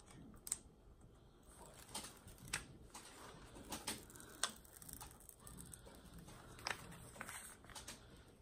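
Faint crinkling and scattered small clicks of the plastic cover film and release paper on a diamond-painting canvas as they are lifted and peeled back by hand.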